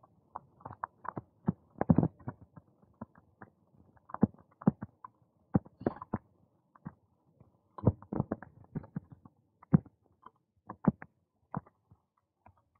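A bicycle jolting over the joints of a paving-slab path, giving irregular sharp clicks and knocks, sometimes several in quick succession, with short quiet gaps between.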